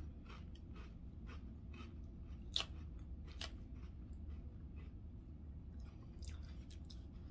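Close-up chewing of crunchy salad: irregular small crunches and crackles, with two sharper clicks in the middle.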